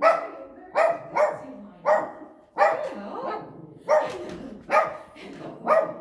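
Chihuahua barking at someone at the door: a string of about nine sharp barks, roughly one or two a second.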